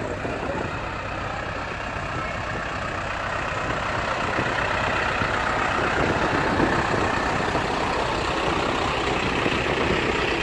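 New Holland TL-series tractor's diesel engine running at low speed while towing a float past, growing louder about four seconds in as the tractor comes close.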